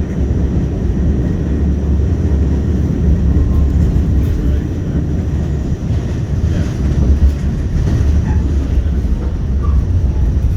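New York City subway train running, a loud, steady low rumble.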